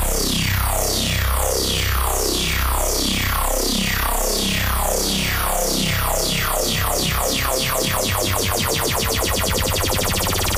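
Teenage Engineering OP-1 synthesizer playing a preset: a loud, dense, bright sound made of repeating falling sweeps that come faster and faster, over a steady low drone.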